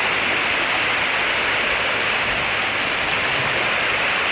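Rain falling on dense rainforest foliage: a steady, even hiss that does not change.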